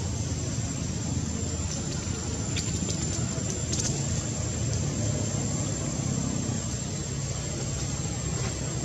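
Steady low outdoor rumble with a thin, steady high-pitched whine above it and a few faint crackles.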